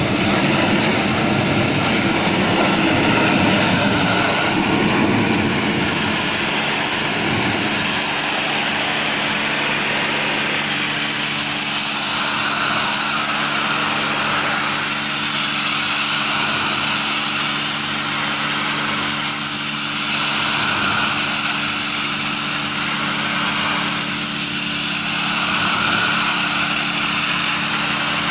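High-pressure washer jet hissing steadily against corrugated sheet metal, blasting off dirt and flaking old paint, over a steady engine hum.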